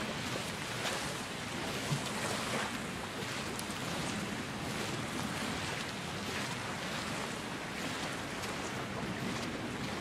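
Gulf of Mexico surf washing onto a sandy beach as a steady wash of noise, with some wind on the microphone.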